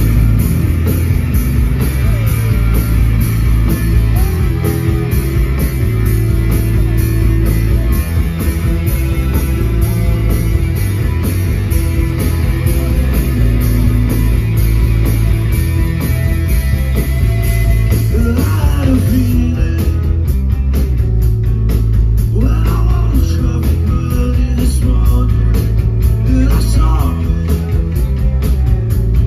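Live rock band playing loud and steady: electric guitars, bass guitar and drum kit, heard from the audience. A singer's voice comes through more clearly in the last third.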